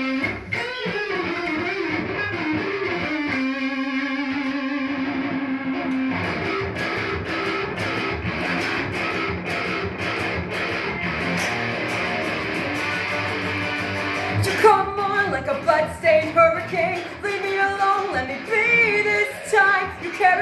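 Electric guitar played through a small combo amp in an instrumental section with no vocals transcribed. Gliding, wavering notes lead into a long held note about three to six seconds in. From about fourteen seconds the playing turns busier and choppier, with sharper loudness peaks.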